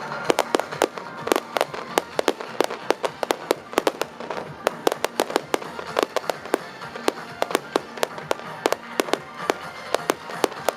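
Fireworks crackling: many sharp pops in quick, irregular succession, several each second, with music playing underneath.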